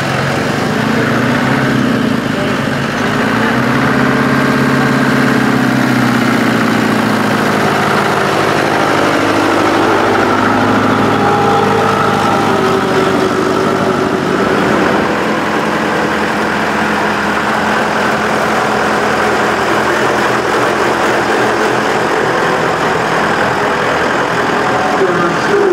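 Engine of a vintage flatbed lorry running as the lorry drives slowly past. Its pitch rises and falls over the first several seconds, then holds steadier.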